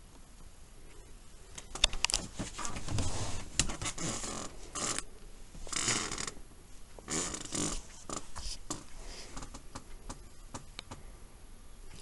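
Slippers scuffing on carpet as someone walks, mixed with rustling from the handheld camera: a run of short scuffs about a second apart with small clicks, from about two seconds in until about eight seconds in, then fainter clicks.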